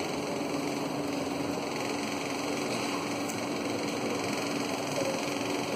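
Steady mechanical room noise: an even hiss with a constant low hum and no separate events.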